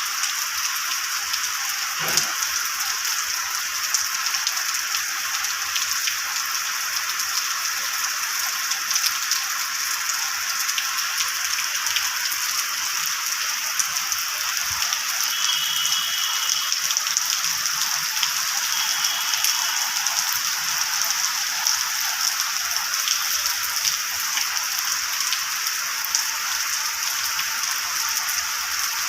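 Steady rain falling, an even hiss thick with the patter of countless drops.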